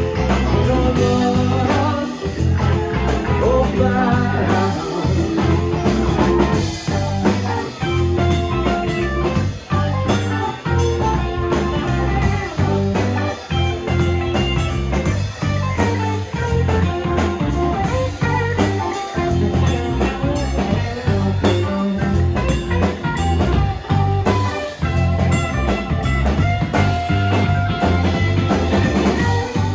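A live rock band playing an instrumental passage: electric guitar over bass, drums and keyboards.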